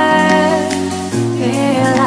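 Background pop song with a singing voice holding a long note, then gliding down about a second in.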